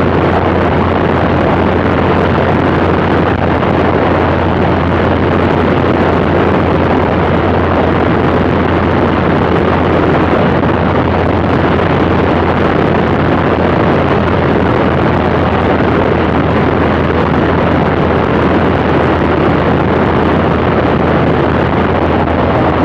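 Cessna Skylane's piston engine and propeller running steadily in cruise flight: a constant low drone with wind rushing over the microphone.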